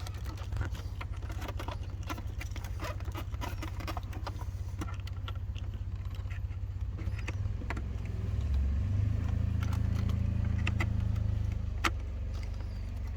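Small clicks and knocks of plastic dashboard parts as an instrument cluster is worked into its housing, over a steady low hum that swells for a few seconds about nine seconds in.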